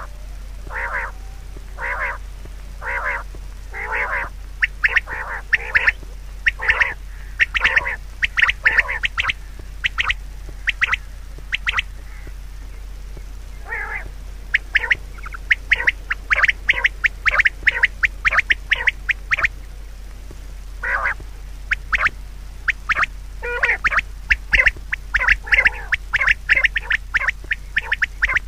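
Animal calls: short, harsh calls about once a second at first, then quicker strings of calls broken by two brief pauses.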